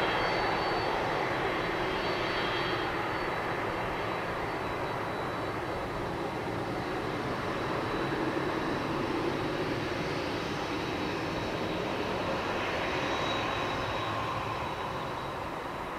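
Boeing 767-300's twin jet engines running at taxi power as the airliner rolls slowly past: a steady rush with a thin high whine over it. It eases off slightly near the end as the jet turns away onto the runway.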